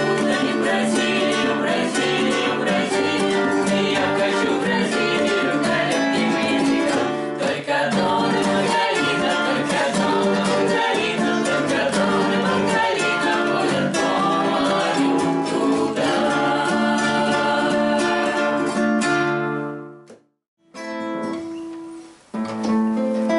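Acoustic guitars strummed together in a steady rhythm. The playing breaks off about twenty seconds in, and after a second's silence strumming starts again.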